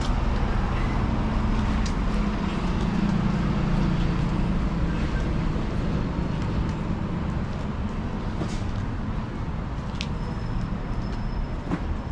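Street traffic with a heavy vehicle's engine running close by, loudest in the first five seconds and then easing off. A sharp click about ten seconds in.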